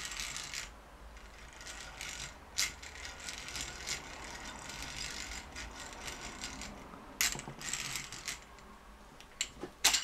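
Geared hand drill cranked steadily, its bit scraping as it drills out a peened-over rivet holding the Hall effect trigger in a BMW ignition 'bean can'. A few sharper clicks and louder scrapes come near the middle and again near the end.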